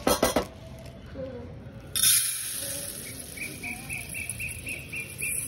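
A cricket chirping in an even pulsing trill, about five chirps a second, over a high hiss that comes in abruptly about two seconds in. A quick clatter of sharp knocks at the very start is the loudest thing.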